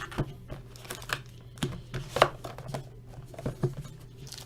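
Plastic wrap crinkling and tearing as a sealed trading card box is opened, a string of irregular sharp crackles with the loudest about two seconds in.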